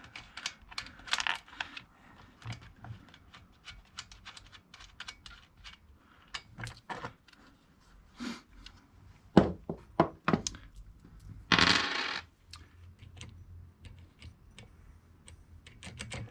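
Small metal clicks and clinks of a wrench and parts as the chain cover of a 62cc Zenoah-clone chainsaw is unbolted and taken off. A few louder knocks come about nine to ten seconds in, followed by a short rasping scrape.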